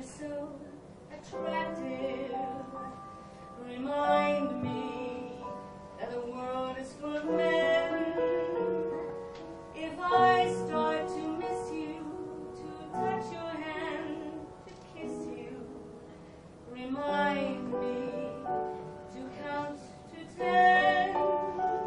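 A woman singing a ballad with vibrato in a theatrical style, in phrases with short breaths between them, over musical accompaniment.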